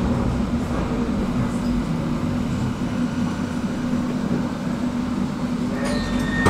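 Inside a Pesa low-floor tram running slowly on street track: a steady low rumble with a constant hum from the running gear and traction motors. Near the end a steady high tone starts, and a couple of sharp clicks follow.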